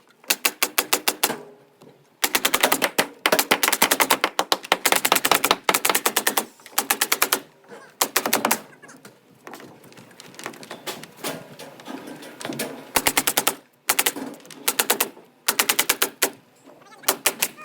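Pneumatic nail gun firing in rapid bursts, many shots a second, with short pauses between bursts and a quieter, sparser stretch in the middle.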